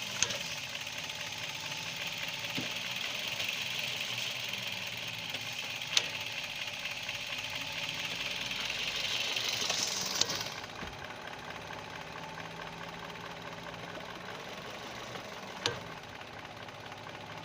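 Car engine idling, with a sharp clunk four times, a few seconds apart, as the transmission is shifted between park, reverse and drive; the clunk is put down to a worn front inner axle joint. A steady hiss under the idle stops about ten seconds in.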